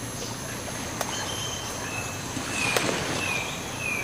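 Forest ambience: a steady high insect drone with a few short, thin bird whistles. There is a sharp click about a second in and a brief crackle near three seconds.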